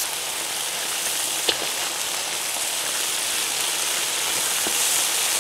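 Braising sauce sizzling in a wide steel wok on the fire, a steady hiss, with a sharp click about a second and a half in.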